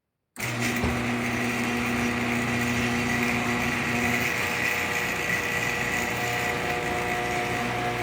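Electric garage door opener running steadily, starting abruptly about half a second in, with a constant motor hum and whine.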